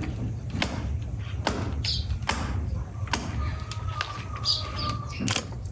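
A series of sharp knocks, four about a second apart and one more after a pause near the end, over a steady low rumble.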